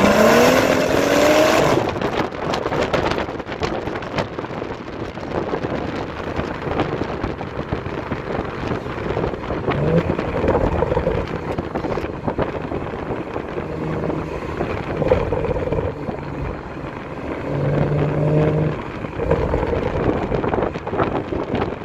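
BMW 435i's turbocharged N55 straight-six with a catless downpipe and the stock resonator and muffler. It pulls hard with a rising pitch in the first couple of seconds, then runs at a steadier, lighter throttle with wind noise.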